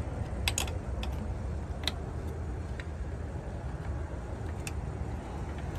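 Scattered sharp metallic clicks and taps from hand tools working loose a car battery's terminals and hold-down, two close together about half a second in and a few more spread out after, over a steady low rumble.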